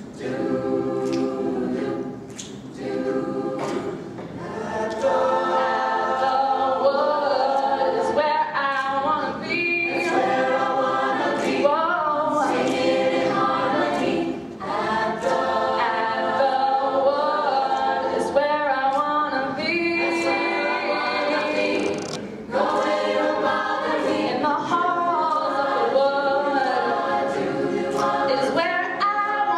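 Mixed a cappella choir singing in harmony, with a female lead voice at the microphone over the group. The singing breaks off briefly between phrases several times.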